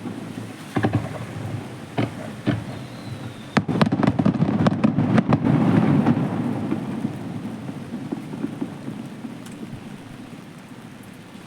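Aerial fireworks bursting: a few separate bangs in the first few seconds, then a dense volley of rapid bangs and crackling about four seconds in, followed by a low rolling rumble that slowly fades.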